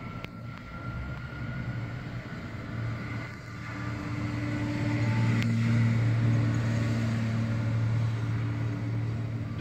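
Airbus airliner's jet engine running, heard across the apron as a steady low rumble that grows louder about four seconds in.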